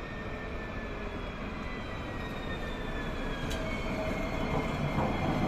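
Twisto tram running with a steady rumble that grows louder, its electric motor whine faintly gliding down in pitch, and one sharp click midway.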